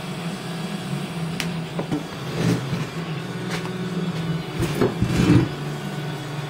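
A steady low machine hum, wavering slightly, with a handful of short metallic knocks and clinks as exhaust tubing and tools are handled on a steel bench; the loudest knocks come near the end.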